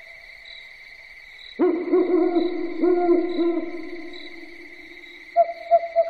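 An owl hooting: a quick series of low hoots begins about a second and a half in and trails off over a couple of seconds. Near the end come three short, higher-pitched notes. A steady high buzz runs underneath.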